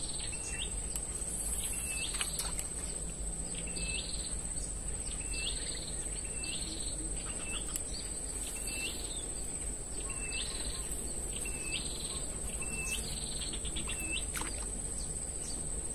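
A bird repeating a short call, about once a second, over a steady high-pitched drone of insects.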